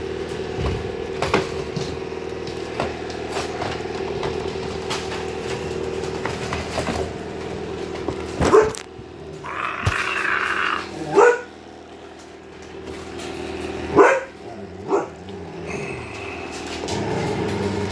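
Seven-week-old husky puppies barking in short, sharp yips, about four of them in the second half, the loudest near the end, over a steady low hum.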